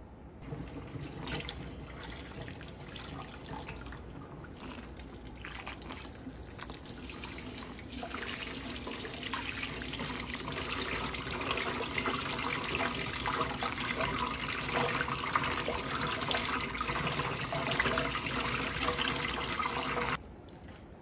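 Water spraying from a handheld sink sprayer onto a small dog being rinsed in a tub, running steadily and growing gradually louder, then cutting off abruptly about a second before the end.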